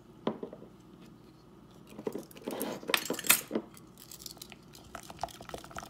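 Metal measuring spoons clinking, with one clink near the start and a jangling rattle about two to three and a half seconds in as the ringed spoon set is put down on the counter. Then a spatula stirring cream cheese in a glass bowl, with light taps against the bowl.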